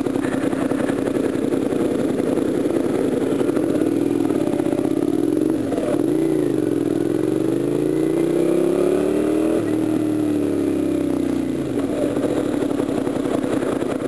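Motorcycle engine with a slip-on exhaust heard from the rider's helmet, running steadily, then the revs dip about halfway through and climb steadily for a few seconds as it accelerates before falling away again.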